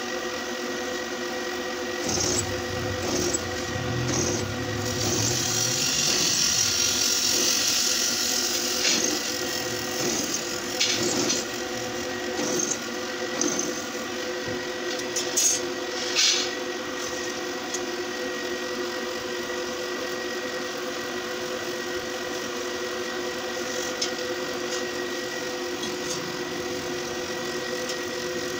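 Pillar drill press motor running steadily while its bit cuts into a steel flat bar, with a loud scraping noise for several seconds in the first third. A few sharp knocks follow, then the motor hums on more quietly.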